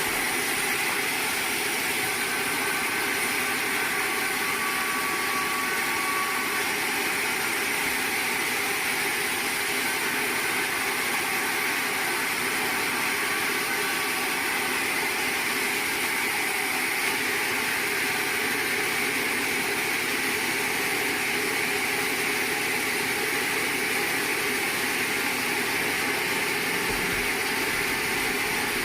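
Sawmill machinery running steadily, a constant machine noise with no clear cut starting or stopping.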